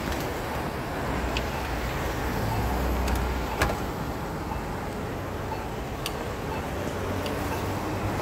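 Steady road-traffic rumble heard from a moving bicycle, with a few sharp clicks, the clearest about three and a half seconds in.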